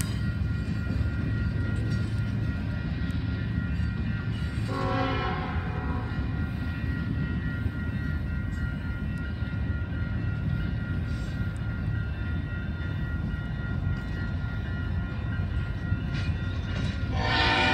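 Train horn sounding a short chord about five seconds in, then again louder just before the end, over a steady low rumble.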